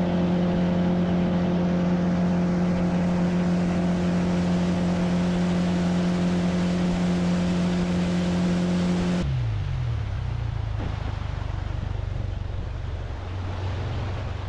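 Outboard motor of a bass boat running at a steady cruising speed, with a rush of water and wind. About nine seconds in it throttles back, its pitch falls, and it runs on at a lower speed.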